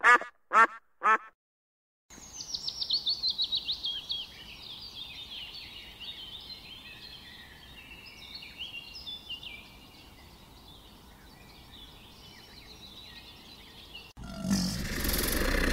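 A duck quacking four times in quick succession, then, after a short silence, small birds chirping and twittering, opening with a rapid run of high falling notes. About 14 seconds in, a loud, rough animal call cuts in.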